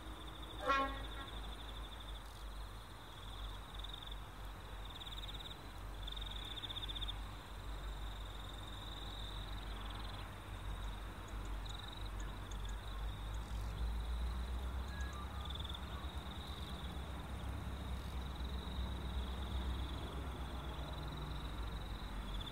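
Insects chirping in pulsing high-pitched bursts over a steady low rumble that grows stronger in the second half. A short, sharp sound about a second in is the loudest thing.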